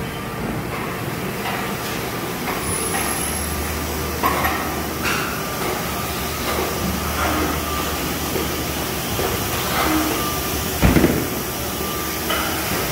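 Steady machinery din of a plastic injection-molding shop floor, with a constant faint whine and a low hum, broken by scattered knocks and clatter; one louder thump about eleven seconds in.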